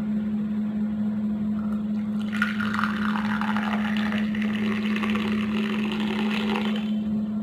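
Hot milk tea poured in a thin stream into a ceramic mug, splashing and frothing; the pour starts a little over two seconds in and stops shortly before the end. A steady low hum runs underneath throughout.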